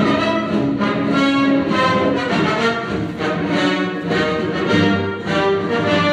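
Orchestral background music, playing steadily with many instruments together.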